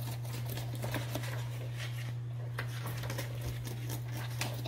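Steady low room hum with scattered faint clicks and rustles on top.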